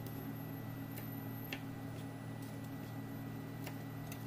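A few scattered light clicks of a kitchen knife tapping on a plastic cutting board while chilies are cut and handled, over a steady low hum.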